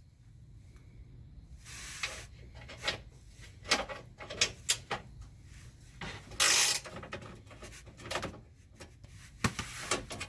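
Socket wrench working a 13 mm skid plate bolt: irregular metallic clicks and knocks, with a brief louder scrape about six seconds in.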